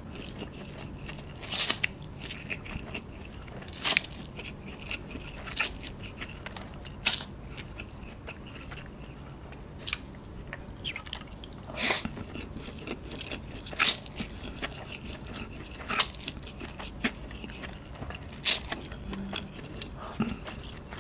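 Close-miked chewing of cooked instant noodles eaten by hand, with a sharp mouth click about every two seconds.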